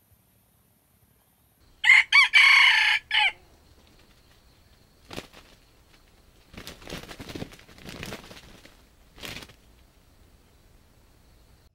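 A junglefowl rooster crows once, about two seconds in, a short crow of about a second and a half. Fainter rustling noises follow over the next few seconds.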